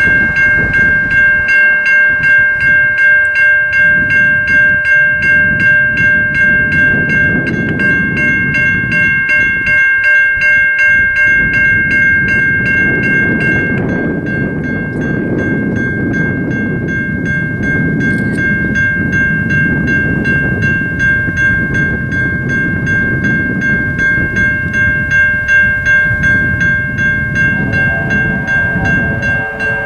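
Safetran Type 3 electronic crossing bells ringing at about two strikes a second as the crossing activates; some of their higher ringing tones drop out about halfway through. The bell nearest is said to be starting to die out. A train horn sounds about two seconds before the end.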